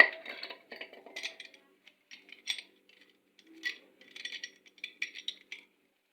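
Metal tools and parts clinking and rattling as they are handled, a sharp clink at the start followed by irregular clusters of small metallic knocks.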